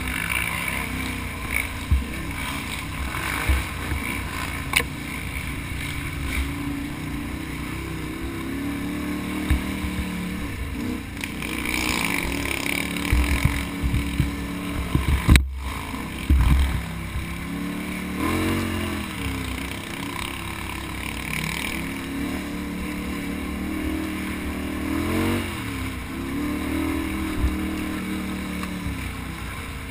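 Can-Am Outlander ATV engine revving up and down under race load, with repeated rises and falls in pitch and frequent thumps and wind buffeting on the microphone. The sound cuts out for an instant about halfway through.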